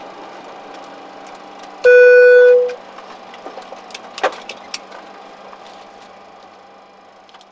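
Steady hum inside a Boeing 737-500 cockpit during taxi, broken about two seconds in by one loud, steady electronic beep lasting under a second. A few sharp clicks follow, and the hum fades near the end.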